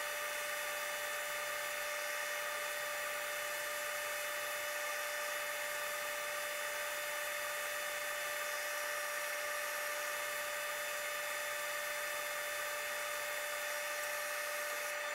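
Benchtop belt sander running steadily with its dust-collection hose drawing air, sanding pallet-wood blocks on the belt: an even hiss with a constant whine.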